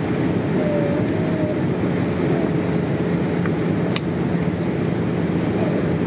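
Steady cabin noise inside a Boeing 787-8 airliner descending through cloud: the even drone of engines and airflow heard from a window seat, with a single small click about four seconds in.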